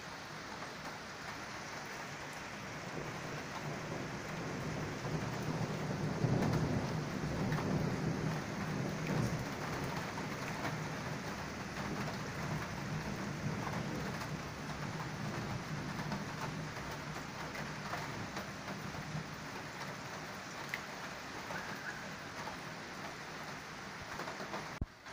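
Steady rain falling, with a long low rumble of thunder that swells about four seconds in, is strongest for several seconds, then slowly dies away.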